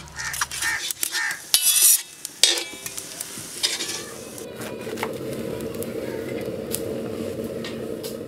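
Utensils clinking sharply a few times, some with a short ring, then marinated chicken pieces sizzling steadily on a hot flat iron griddle, with a knife tapping and scraping the iron now and then.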